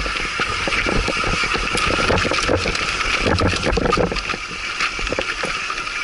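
Mountain bike bouncing down a rough, rocky dirt trail with the brakes held on: a steady, loud brake squeal over a dense clatter of knocks and rattles from the bike hitting rocks.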